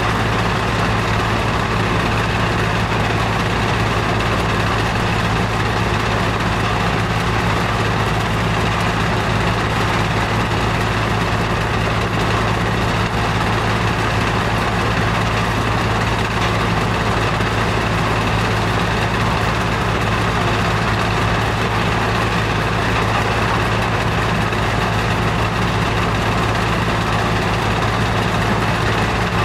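Sand washing plant running: a vibrating rinse screen with water spraying from its spray bars onto the wet sand, over a constant low machinery hum. The sound is steady throughout.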